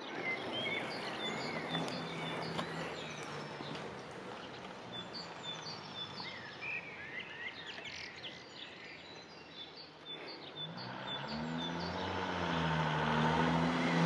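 Wild birds chirping in short, high notes over a steady outdoor hiss. In the last few seconds a low engine hum grows steadily louder.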